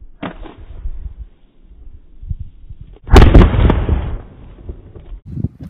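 A thin-walled plastic water bottle bursting under the gas pressure of baking soda and vinegar: one sharp, very loud bang, like a gunshot, about three seconds in, with a short ringing tail.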